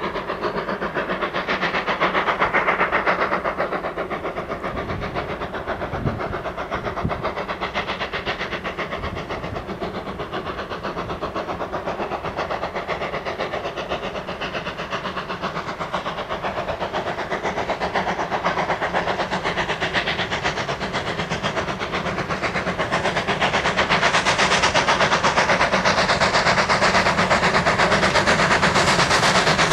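Steam locomotive working hard on a freight train, a steady chuff of exhaust beats that grows louder as the train approaches and is loudest near the end.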